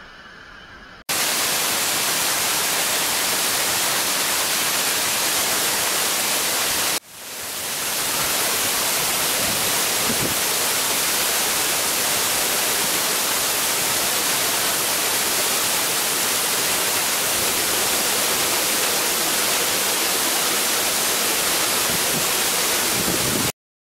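Loud, even hiss like white noise or static. It starts abruptly about a second in, dips sharply and swells back about seven seconds in, and cuts off just before the end.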